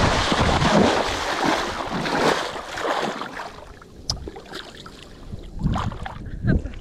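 Rush of sea water with wind on the microphone, loudest for the first two seconds or so and then fading, with a few small clicks and knocks toward the end.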